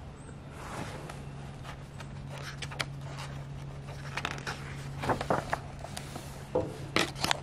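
Picture book pages being turned and handled: paper rustling and crackling in short bursts, busiest in the second half, over a steady low hum.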